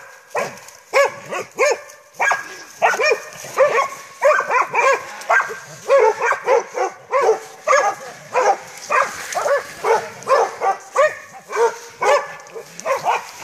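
Hunting dogs barking repeatedly at a wounded wild boar they have caught, about two barks a second.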